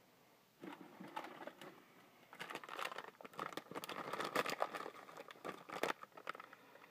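Plastic and cardboard toy packaging crinkling, rustling and clicking as a boxed figure is opened by hand, starting about half a second in and busiest in the second half.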